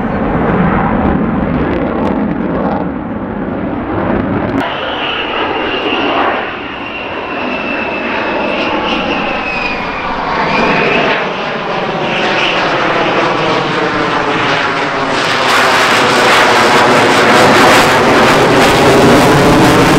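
F-35C Lightning II's single jet engine running hard through a display manoeuvre: a loud, dense rush with a high whine that drifts slightly lower in pitch in the middle. The sound swells louder and brighter over the last few seconds as the jet passes closer.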